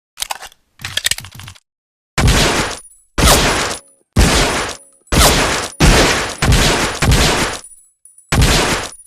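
M1911A1 .45 ACP pistol: a few quick clicks of the gun being handled, then about eight shots fired at a steady pace, roughly one a second, each with a short ringing tail.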